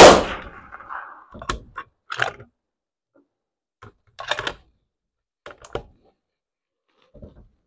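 A single .308 Win rifle shot, very loud and sudden, ringing away over about a second. It is followed by a few short, sharp clicks and knocks of handling the rifle.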